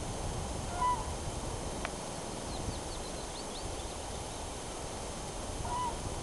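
Outdoor ambience with steady low noise. Two short animal calls stand out, one about a second in and one near the end, with a quick run of faint high bird chirps in between.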